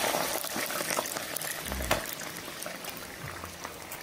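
Hot fat sizzling and bubbling around thin shoestring potatoes deep-frying in a pot, full of small crackles and slowly dying down. A low thump comes about two seconds in.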